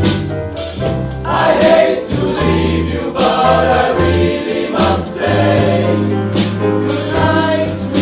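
Male choir singing a song in harmony, with held chords over a low bass line.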